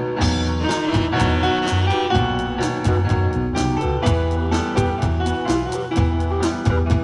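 Instrumental combo band playing live, with saxophone, keyboard, guitar, bass and drum kit. The drums keep a steady beat under held bass notes and melody lines.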